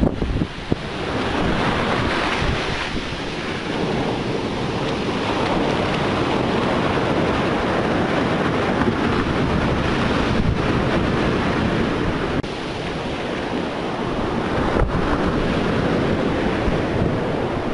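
Storm surf washing onto a beach as a steady rush, with wind buffeting the microphone.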